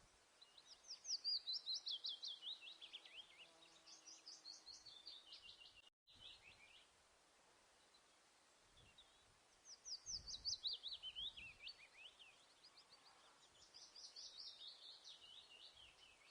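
A songbird singing two long phrases, each a rapid run of high chirping notes that steps down in pitch, then picks up higher again and falls once more. The second phrase closely repeats the first after a pause of a few seconds.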